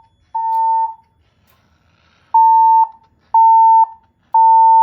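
Siemens Desigo fire alarm system sounding the Temporal-3 evacuation tone: a steady beep of about 1 kHz, half a second on and half a second off, in groups of three. Here the last beep of one group comes first, then a pause of about a second and a half, then a full group of three beeps.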